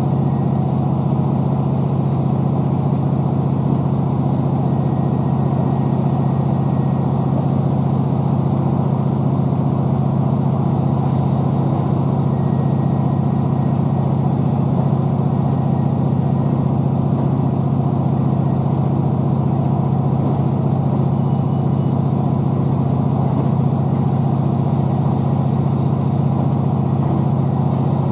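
Underfloor MAN D2876 inline-six diesel engine of a Class 769 bi-mode unit running at a steady speed with a constant low drone, heard from inside the passenger saloon above it.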